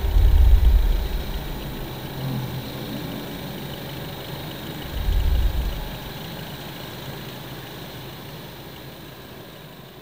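Farm tractor engine running as it tows a loaded silage trailer along a dirt track, with two short bursts of deep rumble, one at the start and one about five seconds in. The sound fades out toward the end.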